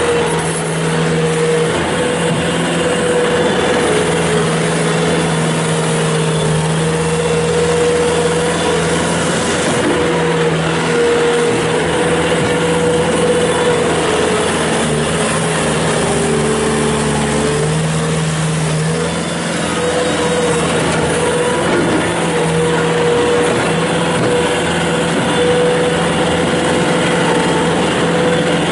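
Bobcat S300 skid steer loader's Kubota turbo diesel engine running steadily, its pitch dipping briefly about two-thirds of the way through.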